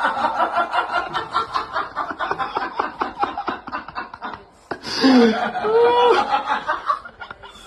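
A person laughing: a fast run of short breathy pulses, a brief break about four and a half seconds in, then a sudden louder burst of laughter with drawn-out, wavering pitched sounds.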